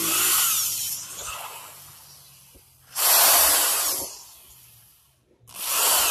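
Corded electric drill boring pilot holes with a 4 mm bit into the edge of a melamine-faced MDF panel, in three short bursts of about a second each with pauses between.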